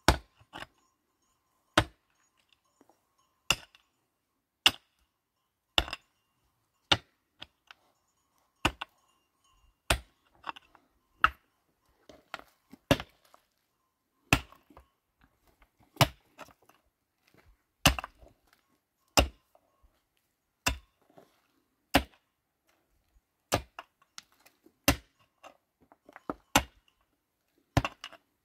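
A long, even series of sharp chopping blows, one every second or so, each often followed by a smaller knock or two.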